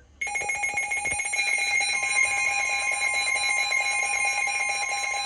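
Weather alert radio alarm sounding for a warning: a loud, steady, shrill electronic tone with a fast pulse that starts abruptly and holds, with a few low knocks in the first second.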